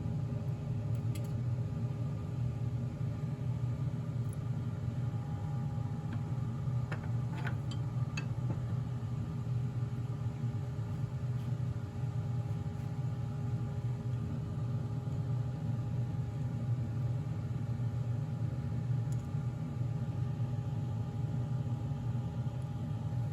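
Wood lathe motor running at a steady speed, a constant low hum with a few steady tones, with a few faint light ticks about seven to eight seconds in.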